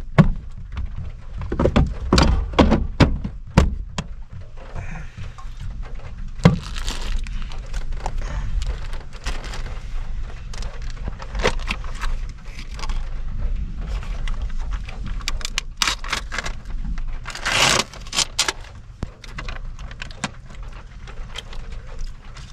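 Knocks, thunks and rustling as things are handled and moved about inside a van, over a steady low rumble, with a louder rustle about three-quarters of the way through.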